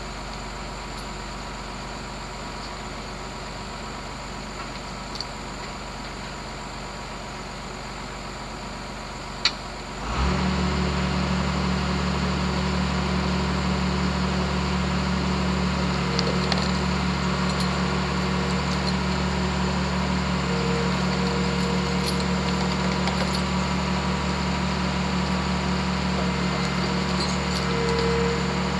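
Diesel engine of a Timberline 3530 delimber starting about a third of the way in, just after a sharp click, then running at a steady idle over a quieter engine hum that was there before.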